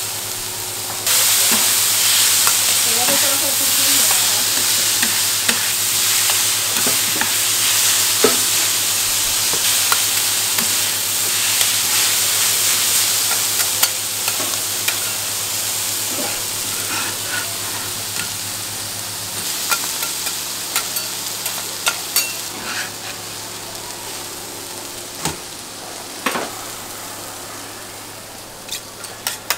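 Shredded vegetables and sausage sizzling on a hot round iron griddle as two metal scrapers toss them, with scraping and sharp clicking taps of the blades on the iron. The sizzle starts suddenly about a second in and eases off in the second half, where the taps stand out more.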